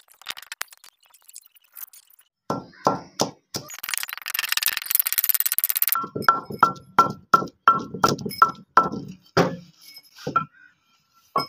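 Wooden pestle pounding garlic in a mortar: three strikes, then about two seconds of rough noise, then a steady run of strikes about three a second, each with a short ring.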